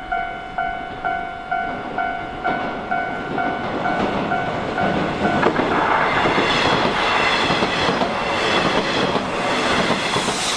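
Japanese level-crossing warning bell ringing about twice a second, then a Nishitetsu electric train passes over the crossing from about five and a half seconds in, its wheels clattering over the rail joints and drowning the bell.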